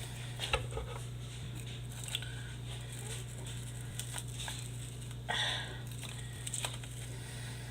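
Faint, scattered clicks and scratchy rustles of cardboard and paper being picked at and pulled apart by hand, the longest rustle about five seconds in, over a steady low hum.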